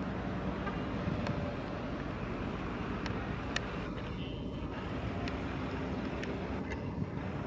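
Ex-Amtrak EMD F40PH diesel locomotives running with a steady low engine drone, with a few faint scattered clicks.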